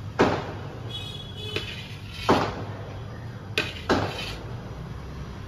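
Hand-held metal chakli press being worked over a plate as dough is squeezed out: four sharp clacks, one near the start, one about two seconds in and two close together near the end.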